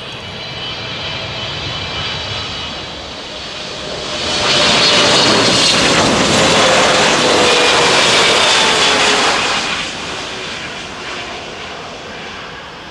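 Boeing 777-300ER's twin GE90 turbofans passing low and close on final approach with landing gear down. The sound swells to a loud rush about four seconds in, with a whine that falls in pitch as the jet goes by, then fades back about ten seconds in.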